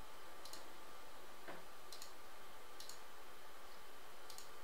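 A few faint, sharp clicks at irregular intervals, about four in all, over a steady low hiss.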